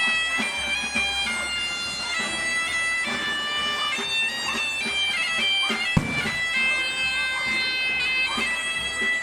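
Asturian bagpipe (gaita) playing a melody of held notes, with a single sharp knock about six seconds in.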